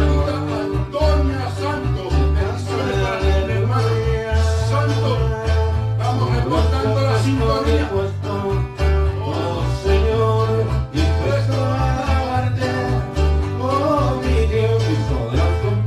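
A Spanish-language charismatic worship song played live on an electronic keyboard and an acoustic guitar, with a rhythmic pulsing bass line under held chords. A man's voice sings into a microphone at times.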